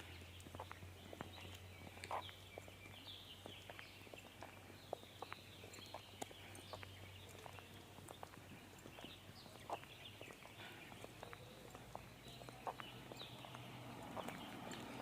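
Faint outdoor birdsong: many short chirps overlapping throughout, with scattered sharp clicks and a steady low hum underneath.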